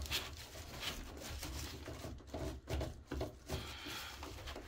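Faint, irregular clicks and knocks of a length of metal conduit being rotated and worked into a metal electrical box.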